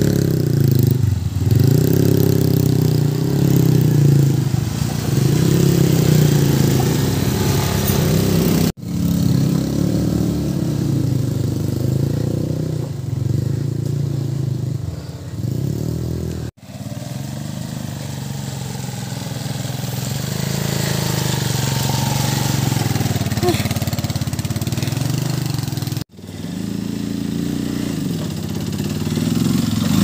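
A street motorcycle's engine running under way, its pitch rising and falling as the rider speeds up and eases off, with a steady hiss over it. The sound cuts off abruptly three times and picks straight up again.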